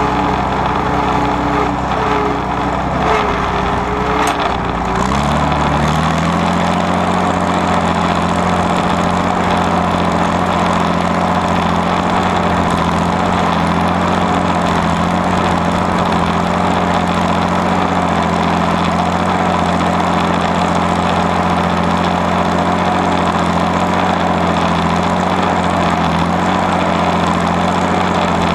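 Allis-Chalmers WD45's six-cylinder diesel engine heard from the tractor seat. Its speed rises about five seconds in, then it runs steadily under load pulling a mounted plow through stubble.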